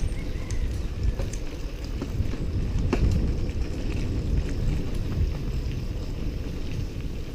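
Wind buffeting the microphone of a camera riding on a mountain bike, over the low rumble of the tyres on a dirt road, with scattered small clicks and rattles from the bike and one sharper click about three seconds in.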